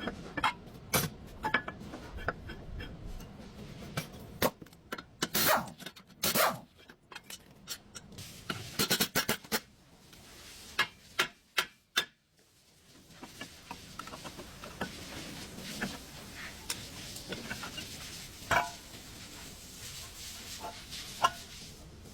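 Irregular metallic clanks and clinks of hand tools, with scraping and rubbing between them, during work on a car's front wheel hub.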